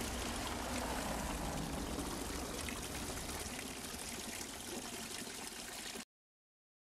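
Thin streams of water running from metal pipe spouts of a stone wall fountain and splashing onto the stone below, a steady trickle that cuts off suddenly about six seconds in.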